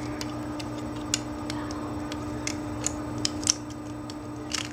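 Irregular sharp clicks and taps from the parts of a hand-built Glock 23 model mechanism being handled, over a steady low hum.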